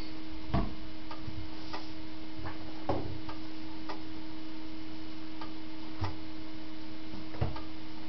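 A steady electrical hum with about half a dozen light, irregular taps and clicks of small objects being handled.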